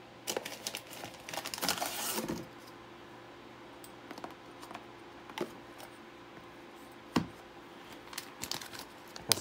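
Packaging crinkling and small hardware parts clicking and rattling as CPU cooler parts are handled. The crinkling and clicks are densest in the first two seconds, followed by a few sharp single clicks spaced a second or more apart.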